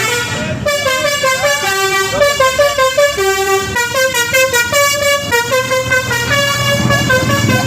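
Indonesian bus 'telolet' horn, a multi-tone musical air horn, playing a tune of short stepped notes with several pitches sounding together.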